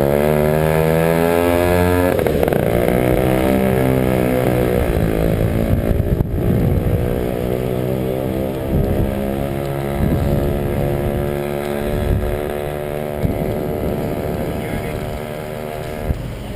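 Motor vehicle engine running under varying load, its pitch dropping sharply about two seconds in and then rising and falling.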